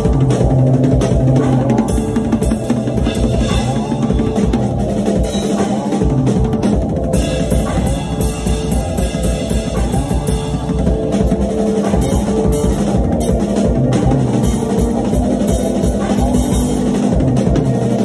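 Acoustic drum kit played with dense, rapid strikes on the snare, bass drum and cymbals, over steady pitched notes from other instruments.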